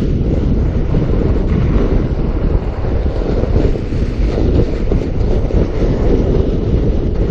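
Wind buffeting the camera microphone in a steady low rumble, mixed with the rolling noise of a fat bike's 4.5-inch tyres on snow.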